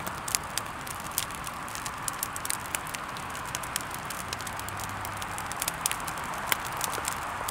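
Wood fire crackling: sharp, irregular pops and snaps over a steady hiss.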